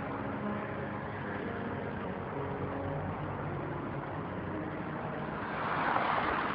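Street traffic noise with vehicle engines running, swelling louder into a rushing noise near the end.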